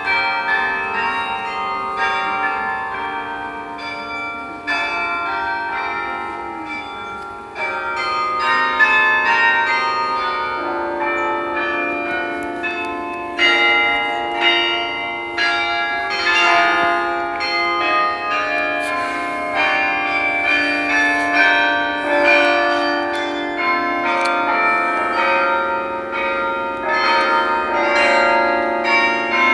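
The Bok Tower carillon's bronze bells playing a melody, with notes struck one after another and in chords, each ringing on over the next.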